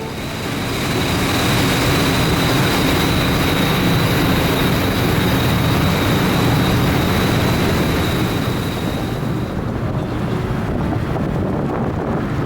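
A boat engine running steadily, with wind on the microphone and water rushing past. A thin high whine fades out about three-quarters of the way through.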